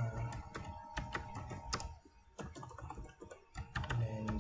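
Typing on a computer keyboard: a run of irregular key clicks, with a short pause about two seconds in.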